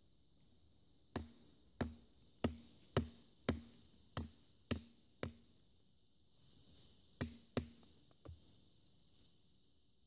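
Gerber Bear Grylls Ultimate survival knife blade chopping into a wooden stick held against a tree stump: eight sharp strikes about two a second, a pause, then four more quicker ones.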